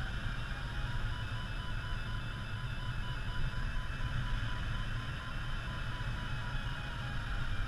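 Steady rushing and low rumble of airflow in the cockpit of an ASK 14 motor glider gliding with its engine stopped. A faint electronic variometer tone beeps in short dashes, stepping up and down in pitch.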